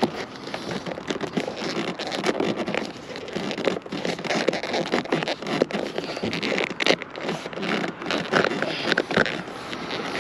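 A Perspex roll-bar wind-deflector insert being pressed and worked by hand into the plastic surround of a Mercedes SLK roll bar: dense, irregular crackling and scraping of plastic edge against trim.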